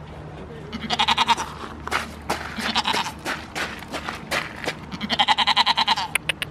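A goat bleats twice: a short, quavering bleat about a second in and a longer one near the end. In between come crunching footsteps on gravel and mud.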